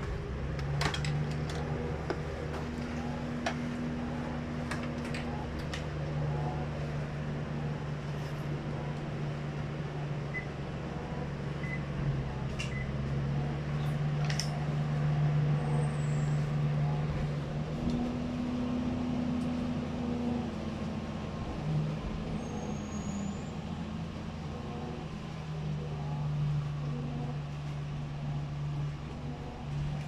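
Toshiba top-load washing machine running, a low motor hum that comes and goes in stretches of a few seconds, with a few light clicks in the first seconds.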